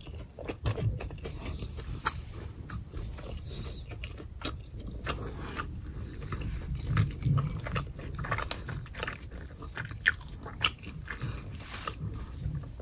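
Close-miked crunching and crackling of a crispy pan-fried scallion pancake as it is torn by hand, bitten and chewed, with irregular sharp crunches over soft low chewing thumps.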